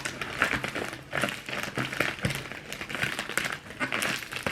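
Package wrapping crinkling and rustling as it is pulled and worked at by hand to get it open, a dense run of irregular crackles.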